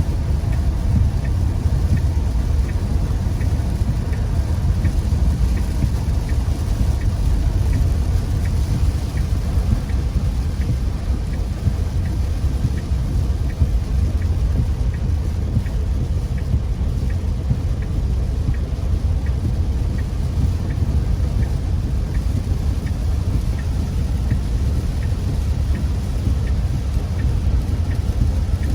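Heavy rain on a moving car, over a steady low rumble of the car and the road.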